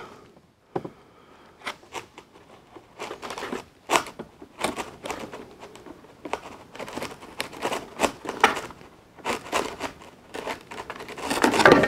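Pliers working plastic packing ties back through the holes of a cardboard insert tray: irregular small clicks, scrapes and cardboard crinkling, louder near the end.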